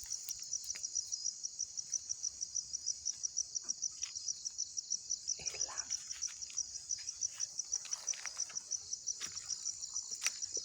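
Cricket chirping steadily at night in a fast, even pulse of about five chirps a second, with a few faint clicks and a short lower sound about halfway through.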